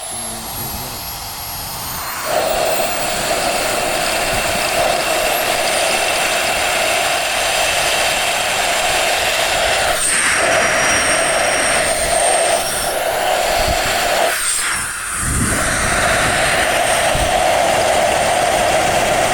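Electric jet fan blowing through a 3D-printed plastic jet turbine model and spinning its blades: a loud, steady rush of air with a high whine that rises over the first two seconds. About fourteen seconds in the sound briefly drops away, then comes back.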